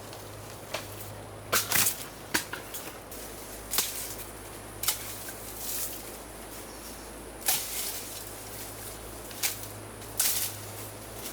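Bamboo shoots being harvested in the forest: a series of sharp cracks and snaps at irregular intervals, about nine in all, some coming in quick pairs.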